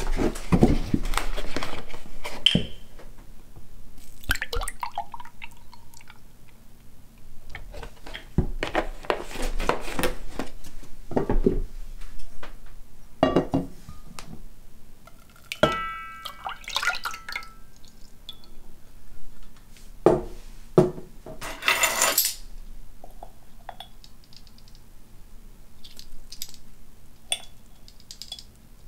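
Soy milk poured into a glass measuring cup and then into a pot, with glass and pot clinks and handling knocks between the pours. One clink of glass rings briefly near the middle.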